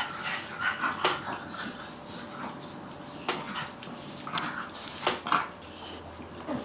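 Two dogs play-fighting on a tile floor: scuffling with several sharp clicks and a few short dog vocal sounds.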